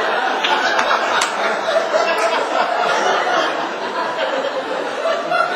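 Live audience laughing together, a continuous crowd laugh that eases off a little toward the end.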